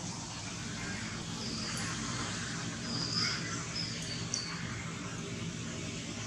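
A few short, high bird chirps over a steady outdoor hiss.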